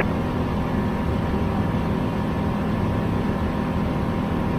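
Steady cockpit drone of a light aircraft's turbocharged Rotax 914 engine and propeller at cruise power, about 5,000 rpm.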